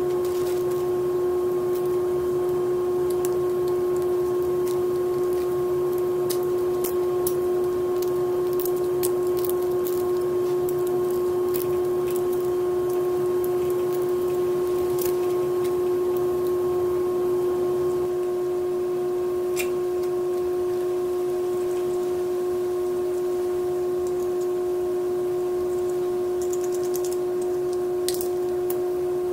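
A steady drone holding one pitch, with a few fainter higher tones, and faint scattered clicks and rustles on top.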